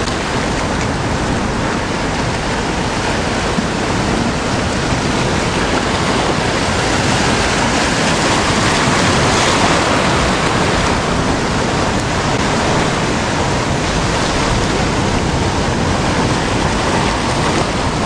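Sea surf washing and breaking over rocks, a steady loud rush of foaming water that swells a little about halfway through.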